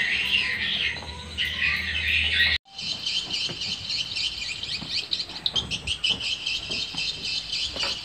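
Dense, high twittering of many edible-nest swiftlets inside a swiftlet house, cut off abruptly a little over two seconds in. After the cut, a steady run of short, high bird chirps carries on.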